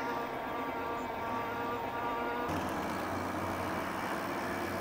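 E-bike's electric drive motor whining steadily while assisting on a climb, over rolling and wind noise. The sound changes abruptly about halfway through.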